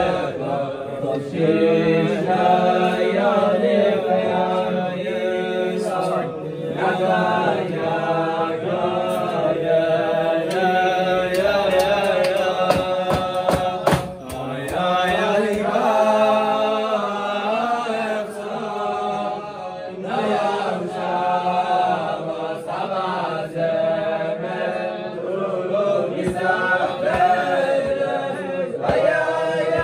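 A group of young men singing a melody together, the voices continuous and rising and falling in pitch.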